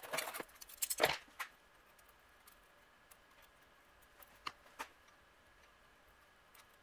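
Small metal parts of a pressure washer pump clinking and rattling as they are handled and worked loose: a quick cluster of clicks in the first second or so, then a few scattered light clicks.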